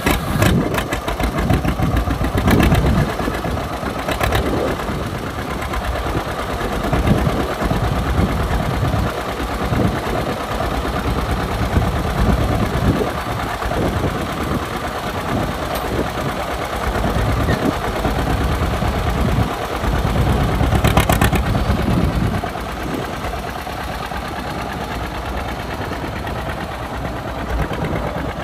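A John Deere 620 tractor's two-cylinder engine running with its pulsing exhaust beat, first idling and then driving off.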